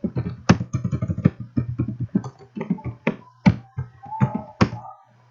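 Computer keyboard being typed on: a quick, uneven run of key clicks that stops about five seconds in, over a steady low hum.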